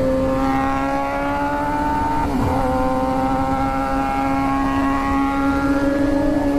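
Inline-four superbike engine pulling under acceleration, its pitch slowly climbing, with an upshift a little over two seconds in where the pitch drops and then starts rising again.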